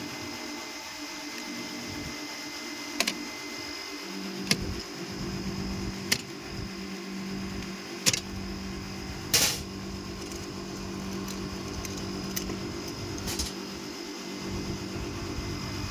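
Scattered sharp clicks and taps of hand work on an HVAC package unit's wiring, about six in all with the loudest near the middle, over a steady low mechanical hum.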